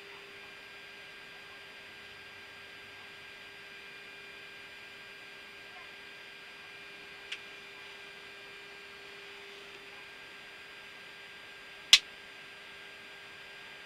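Steady hum and hiss of a Boeing 737-800 cockpit on the ground during engine start, with a steady mid-pitched tone under it. A faint click comes about seven seconds in, and a sharp, loud click, likely a cockpit switch, comes about twelve seconds in.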